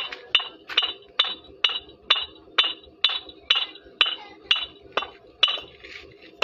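Two fired red clay bricks knocked together by hand, about two strikes a second, each giving a short, sharp, ringing clink, stopping about five and a half seconds in. This is the ring test of how well the bricks are burnt.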